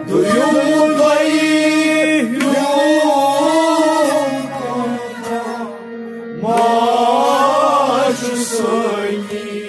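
A male voice singing a Kashmiri Sufi song in long, sliding melismatic phrases over a steady held drone accompaniment. The voice pauses for about two seconds in the middle while the drone carries on, then comes back in.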